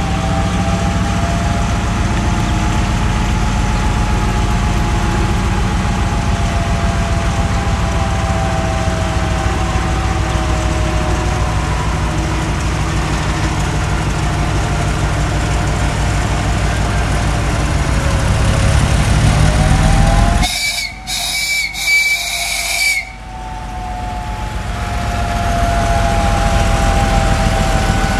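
MÁV M62 diesel locomotive's two-stroke V12 engine running under power as it pulls a freight train of tank wagons away: a loud, steady low drone with a wavering high whine over it. About twenty seconds in the engine sound drops out abruptly for a couple of seconds, with a few sharp cracks, then builds back as the locomotive draws level.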